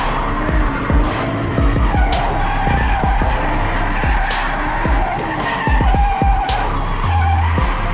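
Car drifting, heard from inside the cabin: tyres squealing while the engine revs rise and fall as the throttle is worked. A few sharp knocks come through on top.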